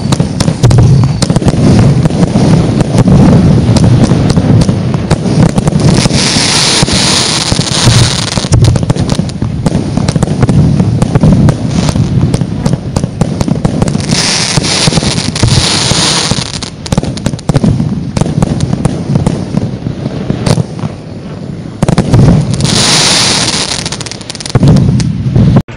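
The Pusher, a multi-shot firework battery, firing a rapid, continuous string of launches and bangs. Three spells of crackling come about six, fourteen and twenty-two seconds in.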